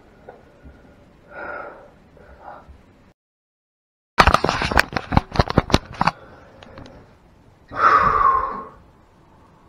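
A burst of rapid crackling clicks lasting about two seconds, right after a second of dead silence. Near the end comes one loud, breathy exhale or sniff.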